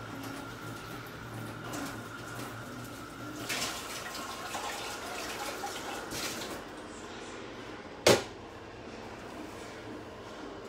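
Water running steadily, easing off about two-thirds of the way through, followed by a single sharp knock near the end.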